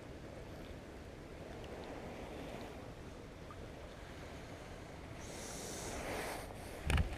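Handling noise on a body-worn camera: a low steady rumble of wind and padded-jacket fabric against the microphone. About five seconds in there is a brief hissy rustle, and a sharp knock comes near the end.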